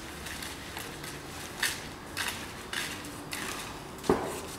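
Footsteps of two people walking on a concrete walkway, short scuffing steps roughly every half second, with a louder knock about four seconds in.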